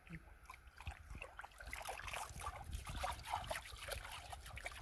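Faint, irregular small splashes and trickling of shallow muddy rainwater pooled in a stony streambed, growing busier after about a second and a half.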